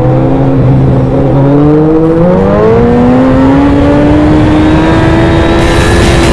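Suzuki Hayabusa's inline-four engine, fitted with a K&N air filter, running loud under throttle. The note holds for about two seconds, then climbs steadily in pitch as the bike accelerates.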